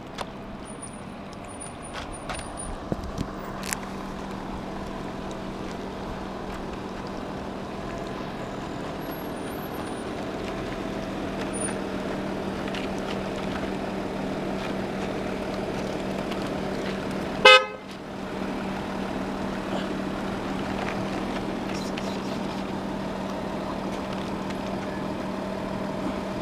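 Steady engine hum, a low drone with overtones that slowly grows louder. About two-thirds of the way through comes one short, loud horn toot, and there are a few faint clicks near the start.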